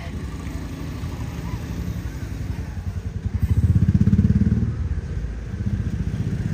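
Motorbike engine running on the road close by, a low rapid putter that grows louder to a peak about four seconds in and then fades.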